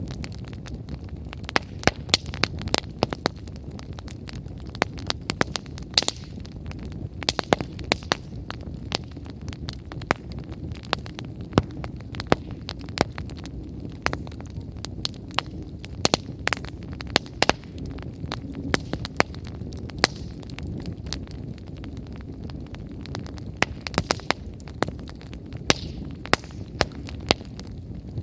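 Wood fire burning strongly, with a steady low rumble of flame under frequent sharp, irregular crackles and pops from the burning firewood.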